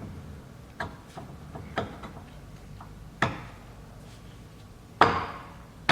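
Metal differential parts clicking and clanking as the welded clutch-pack hubs and spacers are fitted back into a dry clutch-type diff case. A few light clicks come first, then two louder clanks, about three and five seconds in.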